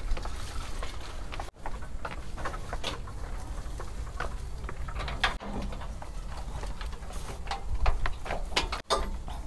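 Footsteps and a bicycle being wheeled along a narrow paved path: irregular scuffs, clicks and light rattles. A louder clatter comes near the end as a metal gate is pushed open.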